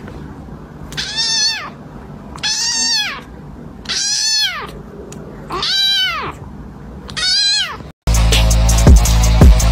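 Kitten meowing five times at even intervals, each a short, high call that rises and falls in pitch. About eight seconds in the meows stop and loud music with a heavy beat takes over.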